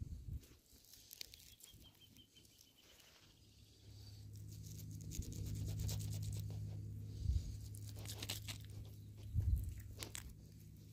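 Hands working a small piece of fish bait against a rough stone, making faint scratching, tearing and ticking noises. A steady low rumble comes in about four seconds in, and there are two dull bumps near the end.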